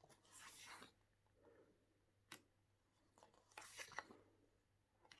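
Faint paper rustling as glossy photobook pages are turned, two soft swishes with a couple of light taps from handling the book.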